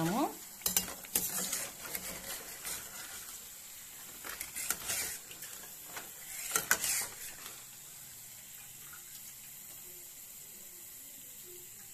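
Perforated steel skimmer clinking and scraping against a steel kadai as a batch of fried chekkalu is scooped out of hot oil, a handful of sharp knocks in the first seven seconds, the loudest about six and a half seconds in. The oil sizzles faintly throughout as a steady hiss.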